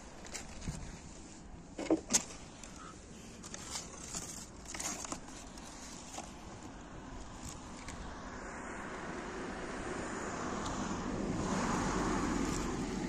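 Rustling and clicking as junk and plastic bags in a curbside trash pile are handled, with two sharp knocks about two seconds in. From about eight seconds in, a car's noise swells as it passes, loudest near the end.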